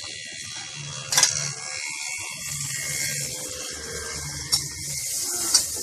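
Food sizzling on a hot iron griddle (tawa) as kothu idli fries, with three sharp metallic clinks of the metal spatula against the griddle.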